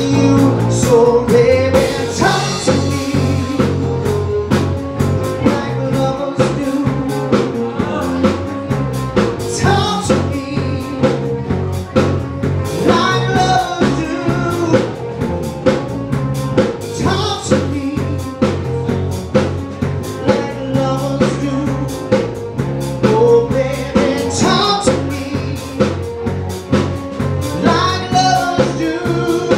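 Live pop-rock band: a male lead vocalist singing over electric bass, drum kit and keyboard, the drums keeping a steady beat.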